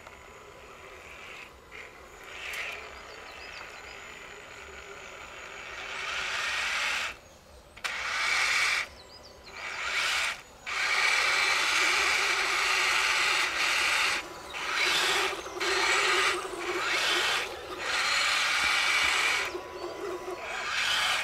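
Electric motor and gear drivetrain of a radio-controlled scale crawler whining in repeated throttle bursts of a second or two, with short breaks between, as its tyres churn through mud and water. The first few seconds are quieter, before the bursts begin.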